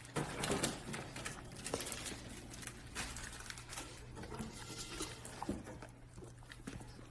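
Golden retriever eating a peeled banana from a hand: wet chewing and lip-smacking, a quick irregular run of soft mouth clicks, busiest in the first second.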